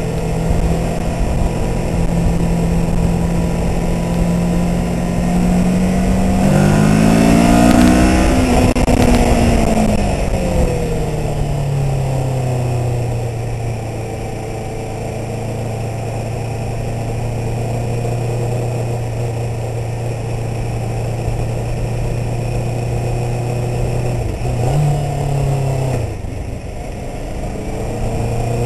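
Twin-cylinder engine of a 650R sport motorcycle fitted with a Stealth exhaust, running under way at low road speed. The engine note climbs in pitch as the rider accelerates a few seconds in, then falls back to a steady, lower cruising note, with a short rise in revs near the end.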